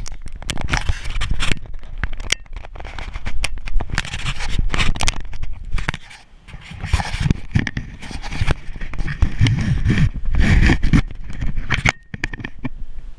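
Close handling noise on the camera: rustling, scraping and tapping as it rubs against skin, clothing and hammock nylon, with rumbling bumps. It drops briefly about halfway and again near the end.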